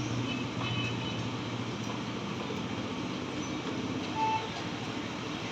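Steady mechanical running noise with a low hum, and a brief higher tone about four seconds in.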